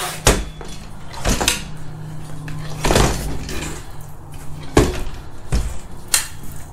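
Plastic folding table with metal legs being unfolded: the legs swing out and lock with about six sharp clacks and knocks, over a steady low hum.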